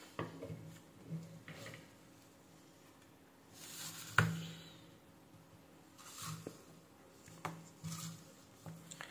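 Faint handling noise from small tools and parts on a wooden workbench: light taps, clicks and rubbing as they are put down and picked up, with one sharper knock about four seconds in.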